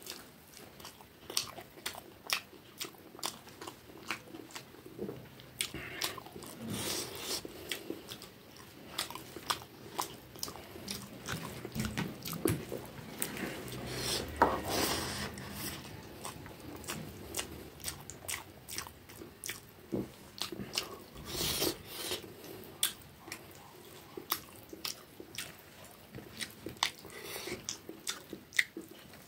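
Close-miked chewing and mouth sounds of a person eating rice by hand, with many short sharp clicks throughout, most frequent around the middle.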